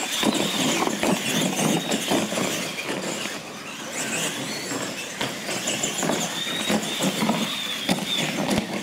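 Electric R/C monster trucks racing across a concrete floor: a high, steady motor whine over tyre noise, with repeated knocks as they run over the ramps and boards.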